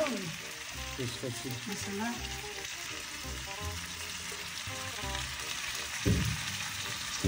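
Meat frying with masala in a pan, a steady sizzle with some stirring.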